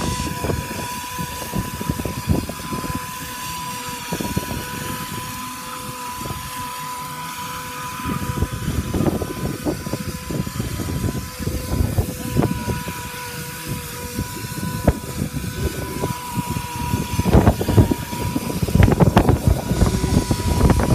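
Roofing spray rig running with a steady high whine while the wand lays down cold fluid-applied emulsion with chopped fiberglass. Wind gusts buffet the microphone in low rumbles, heavier near the end.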